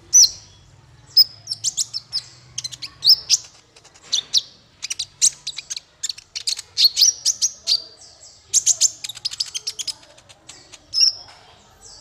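Male Van Hasselt's sunbird (kolibri ninja) singing a fast, jumbled run of sharp, high chirps and trills in bursts with short gaps.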